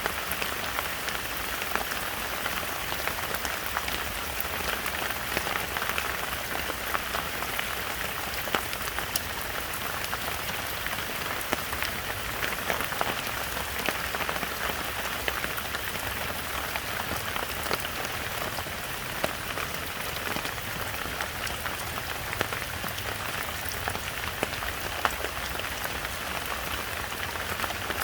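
Heavy rain falling steadily in a forest, a dense even hiss with many sharp, close drop impacts scattered through it.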